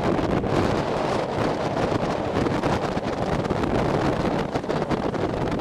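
Wind buffeting the microphone in gusts, a dense rush that covers everything else.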